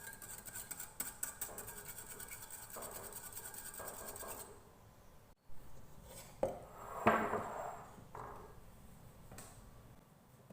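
Milk, egg and oil being whisked in a bowl with a utensil: quick rapid clicking and scraping against the bowl for about four seconds, then a short pause and a few scattered scrapes and knocks.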